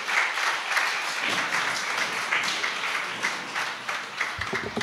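Audience applauding, many hands clapping together, the clapping thinning out near the end.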